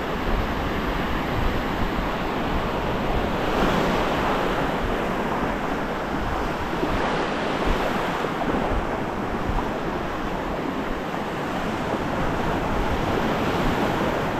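Ocean surf breaking and washing up the beach as a continuous rush of water noise that swells louder about four seconds in and again around eight seconds, with wind rumbling on the microphone.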